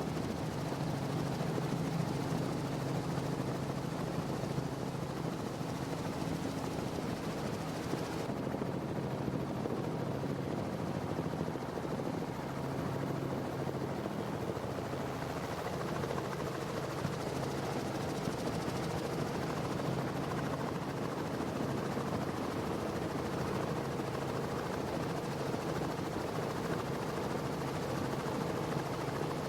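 Quad Mercury Racing supercharged V8 outboards driving a high-performance powerboat hard at speed: a steady engine drone under a rushing wash of wind and water.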